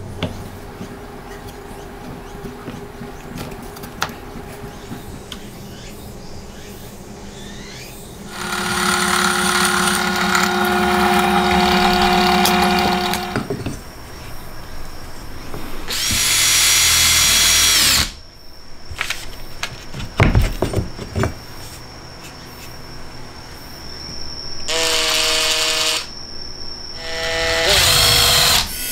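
Cordless drill/driver running in several bursts of a few seconds each, the longest about five seconds, its bit shaving out a screw hole in the metal base of a Ryobi ML-83S electric hand planer.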